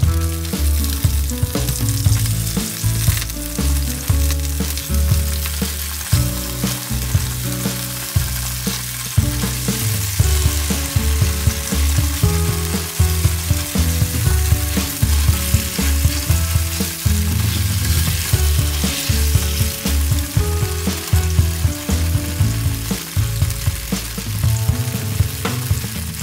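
Slices of tofu sizzling steadily as they fry in shallow oil in a nonstick pan, with metal tongs now and then clicking against the pan as the pieces are turned. Background music with a bass line plays underneath.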